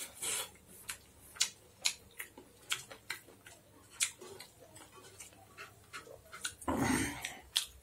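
Close-up eating sounds: wet chewing and lip smacks as a string of sharp irregular clicks. A louder, longer noise comes near the end.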